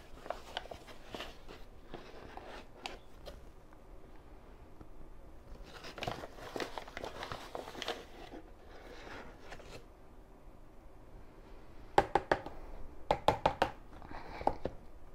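Paper flour bag crinkling and rustling as flour is scooped out with a plastic measuring cup, with a longer rustle about six seconds in. Near the end comes a quick run of sharp taps, the loudest sounds, as the cup knocks against the plastic mixing bowl.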